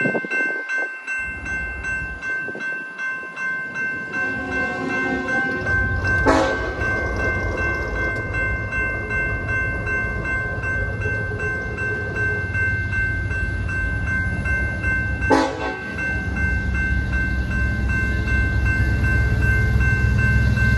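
Railroad grade-crossing bell ringing steadily while a diesel freight train approaches, its locomotive rumble building about six seconds in and growing louder near the end. Two brief sharp sounds stand out, about six and fifteen seconds in.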